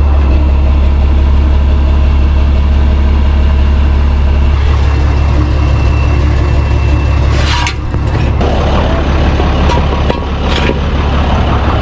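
Tow truck engine idling steadily close by, a loud low hum. There are a couple of short metallic clanks past the middle.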